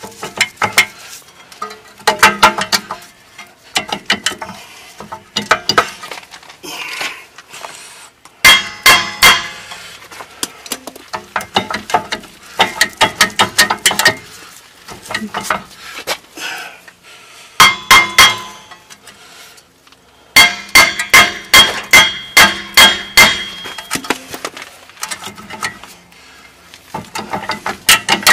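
Hammer striking the back of a rusted-on rear brake disc rotor on a 2001 Ford Excursion, hard metal-on-metal clanks that ring, in bursts of several quick blows with short pauses between. The blows are breaking the rotor's rusty grip on the hub so it can be pulled off.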